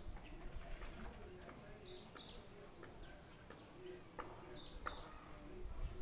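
Faint birdsong: a short, high two- or three-note chirp phrase repeats about every two and a half seconds, over soft, low cooing notes of a dove.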